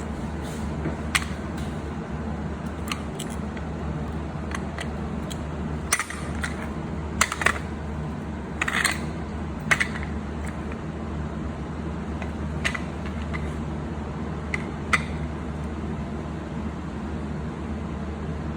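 Metal parts clinking and clicking: a dozen or so short sharp clinks, several in quick clusters around the middle, over a steady low hum.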